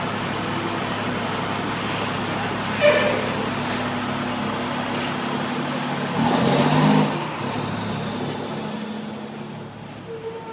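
Fire engine running steadily, with a brief sharp sound about three seconds in and a louder surge around six to seven seconds in, then growing fainter near the end.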